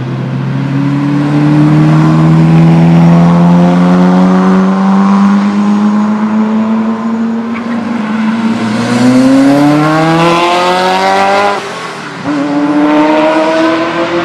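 Ferrari F40's twin-turbo V8 accelerating hard out of a chicane and past, its revs climbing steadily and then faster. About eleven and a half seconds in, an upshift drops the pitch, and it climbs again as the car pulls away.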